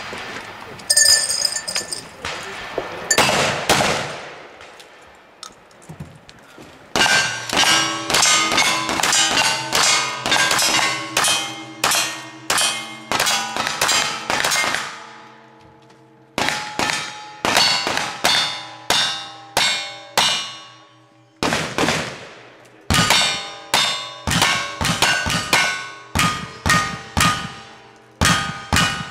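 Gunshots in quick strings with short pauses, each followed by steel targets ringing at several different pitches. The gunfire comes from a cowboy action shooter's guns, including a lever-action rifle.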